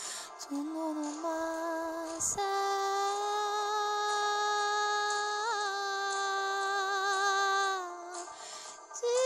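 A woman's voice toning wordless held notes, as in channelled light-language singing: two short notes, then one long steady note held for about five seconds. A brief click about two seconds in.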